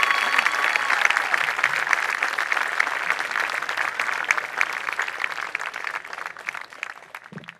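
Large audience clapping in applause, a dense patter of many hands that fades away toward the end.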